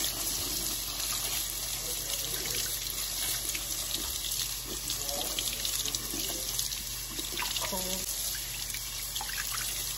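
Kitchen faucet running steadily, its stream splashing through a plastic colander of blackberries being rinsed and into the sink.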